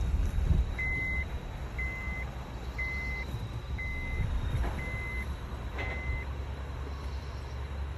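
Electronic beeping: six short beeps of one steady high pitch, evenly spaced about a second apart, over a continuous low rumble.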